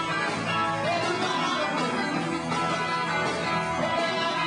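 Live rock band playing, with guitar to the fore.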